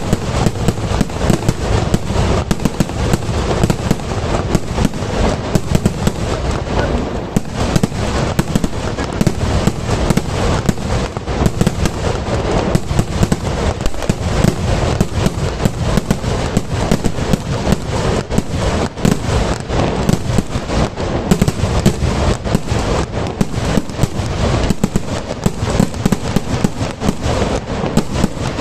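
Fireworks barrage: a continuous, rapid string of firecracker bangs, so close together that they run into one another.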